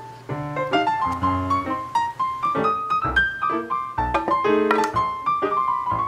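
Background piano music: a steady run of struck notes carrying a melody over low bass notes.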